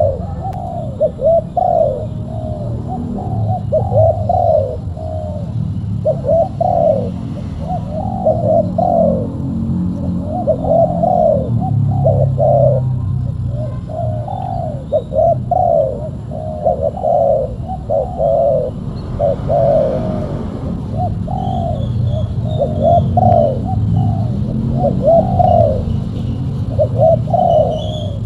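Spotted doves cooing over and over, in short phrases of two or three coos with only brief pauses between them, over a steady low rumble.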